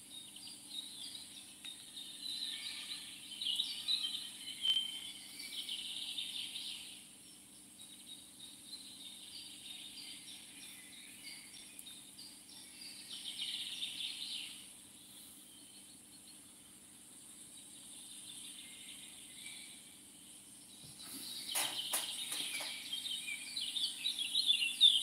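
Songbirds singing and chirping in several bursts, with a few sharp knocks of plastic tackle boxes being handled near the end.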